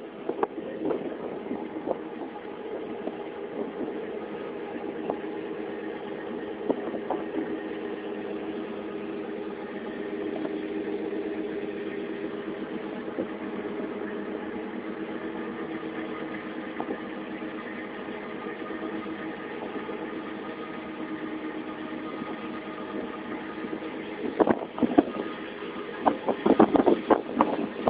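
Ship's engine running with a steady drone, heard from on board. In the last few seconds a flurry of sharp knocks and clattering comes over it.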